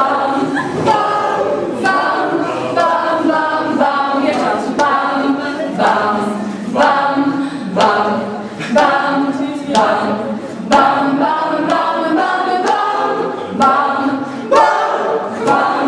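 A group of young voices singing a cappella together in a rhythmic chorus, with sharp percussive hits every second or two.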